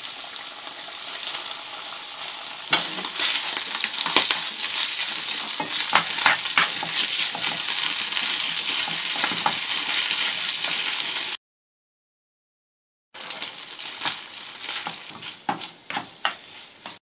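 Chicken, mushrooms and sliced olives sizzling in a frying pan while a wooden spatula scrapes and taps against the pan as they are stirred. The sound cuts out completely for about two seconds about two-thirds through, then the sizzling and scraping resume.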